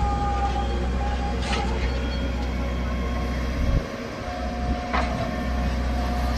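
Diesel engine of a JCB backhoe loader running steadily at work. Two sharp knocks come through, about a second and a half in and again about five seconds in, and the low rumble dips briefly near the four-second mark.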